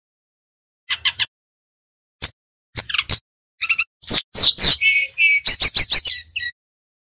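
Brown-chested jungle flycatcher singing: short phrases of sharp chirps and quick falling whistles, starting about a second in and packing into a fast run of notes past the middle.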